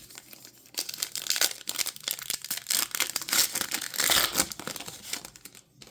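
Plastic trading card pack wrapper being torn open and crinkled by hand, a dense run of irregular crackles and rips.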